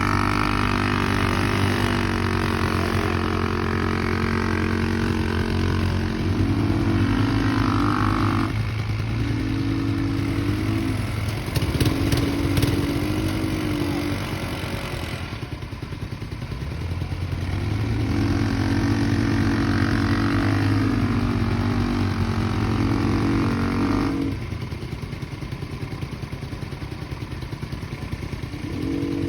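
A 200cc ATV's single-cylinder engine running under load, its pitch rising and falling repeatedly as the throttle is worked. There is a brief clatter about twelve seconds in, and the engine drops to a quieter, lower run around sixteen seconds in and again for a few seconds near the end.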